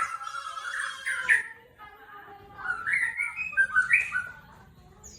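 White-rumped shama (murai batu) singing: two phrases of quick, varied whistled notes with a short pause between them about one and a half seconds in.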